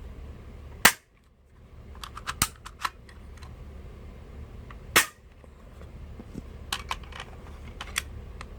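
Spring airsoft pistol fired twice, about four seconds apart, each shot a sharp crack; between the shots the stiff spring-loaded slide is pulled back to cock it, giving a few quick clicks.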